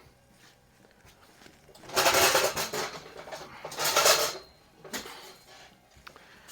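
Handling noise: things being picked up and moved about on a workbench, clattering and rustling in two main bursts about two seconds apart, with a smaller knock shortly after.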